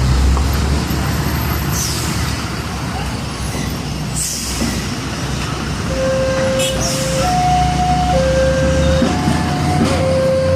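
Heavy diesel trucks passing on a busy road with a steady low engine rumble and road noise, broken by a few short hisses. From about six seconds in, a two-note tone alternates between a lower and a higher pitch, about one note a second.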